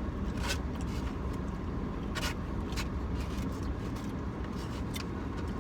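Steady low rumble of a car idling, heard from inside the cabin, with about four short sharp noises scattered through it.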